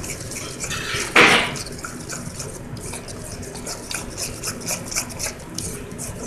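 Wet flour batter being mixed by hand in a stainless steel bowl: a quick, irregular run of squishing, rubbing strokes against the metal. A short, louder burst of noise comes about a second in.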